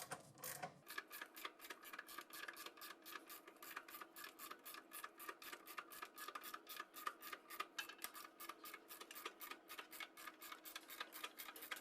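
Faint, even ratchet clicking, about four clicks a second, that starts about a second in and stops near the end.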